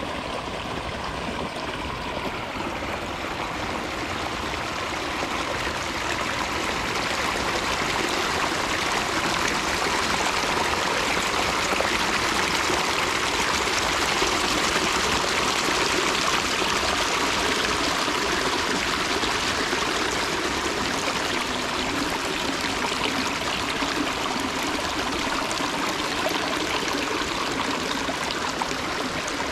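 Water running and splashing down the rocks of a pondless waterfall, a steady rush that gets a little louder about a quarter of the way in.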